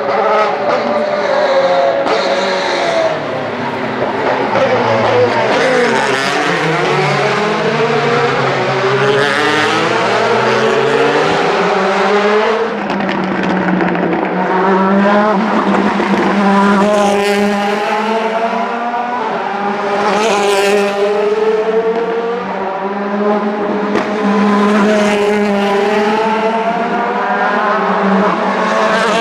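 Several DTM race cars' 4.0-litre V8 engines running together, their notes rising and falling as the cars rev and pull past one after another. From about halfway through, a steady engine note holds underneath the passing cars.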